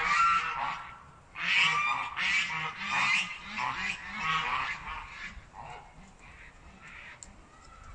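Sanhuang hen calling on the nest as she lays: one call at the start, then a quick run of repeated squawking calls from about a second and a half in, growing fainter after about five seconds.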